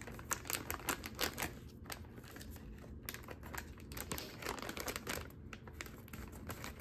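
Plastic treat package crinkling in short, irregular crackles as a puppy paws and mouths at it.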